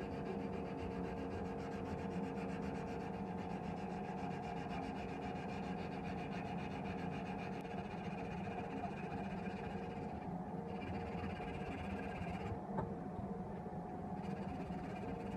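Sandpaper rubbed by hand back and forth over a steel knife blade, with a steady hum underneath and a single light click near the end.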